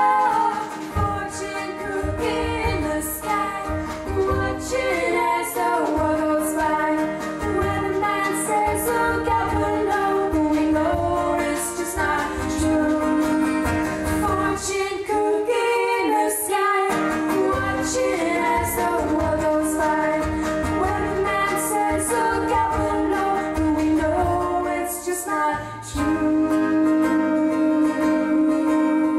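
Pop song with sung vocals over guitar and drums, with cymbal hits keeping a steady beat and a short break about 25 seconds in.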